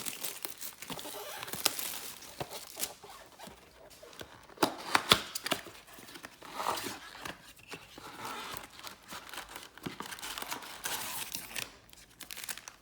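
A trading-card blaster box and its card pack wrappers being torn open by hand: rustling and crinkling of wrapper and cardboard, with a few sharp rips about four to five seconds in.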